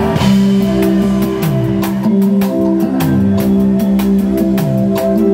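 Live band music in a large hall: a drum kit keeps a quick, steady beat under sustained chords and a moving bass line.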